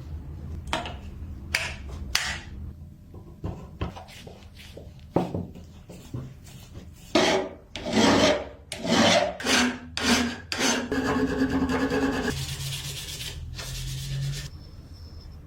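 Hand filing: a run of irregular rasping strokes, scattered at first, then louder and closer together, ending in a few seconds of continuous scraping that stops shortly before the end.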